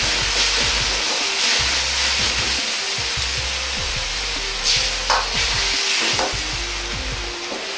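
Stock sizzling and bubbling in a hot black wok as a ladle stirs it, with the ladle knocking against the wok a few times about five seconds in.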